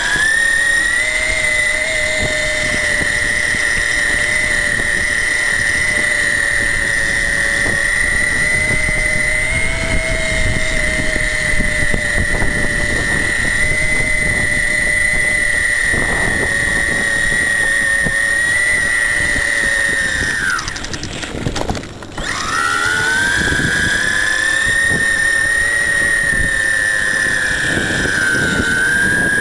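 Electric bike's Astroflight RC motor and pulley reduction drive whining at a steady high pitch under power, over wind and rolling noise. About twenty seconds in the whine drops in pitch and cuts out for a moment as power comes off, then rises again when the throttle is reapplied.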